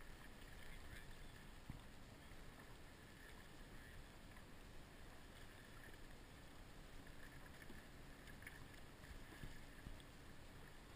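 Near silence: faint lapping of calm water, with a few soft splashes.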